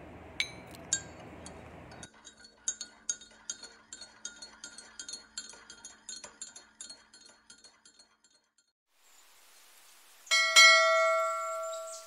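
A small metal spoon clinking repeatedly against a clay cup as milk is stirred, about three to four taps a second. Near the end, a loud bell chime, a subscribe-button notification sound effect, rings out and slowly fades.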